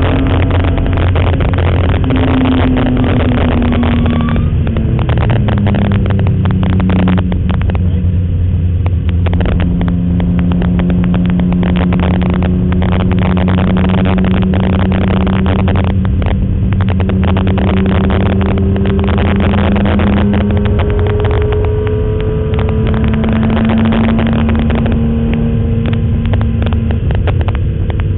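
BMW M3 race car's engine heard from inside the cabin at speed on a track lap. The engine note falls about four seconds in, then holds and climbs slowly, dips and climbs again, and drops near the end, with loud crackling distortion throughout.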